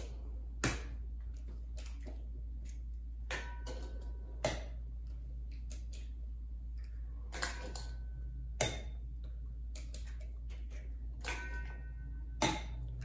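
Eggs being cracked one by one on the rim of a mixing bowl: about seven sharp taps, mostly in pairs a second or so apart, a few followed by a short ringing tone from the bowl.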